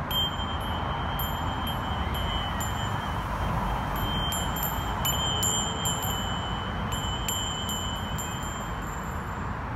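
A bell ringing: one steady high tone sounds from the start and stops shortly before the end, with many light, tinkling strikes scattered over it. A steady hum of city traffic runs underneath.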